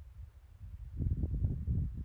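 Wind buffeting the microphone: a low rumble that picks up into gusts from about a second in.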